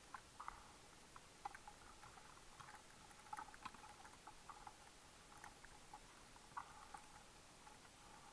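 Faint, irregular clicking and crackling, a few small ticks a second at uneven spacing, picked up underwater through a diving camera's housing.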